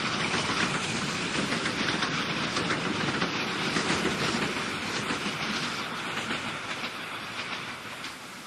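Train running along the rails, fading away over the last two or three seconds.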